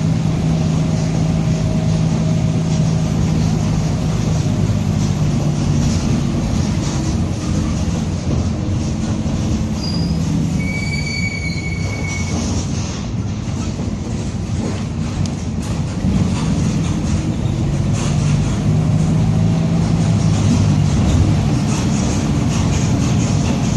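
Mercedes-Benz OF-1722M bus under way, its drivetrain running with the differential howling: a steady whining tone that fades through the middle and comes back strong near the end. A brief high squeal sounds about halfway through.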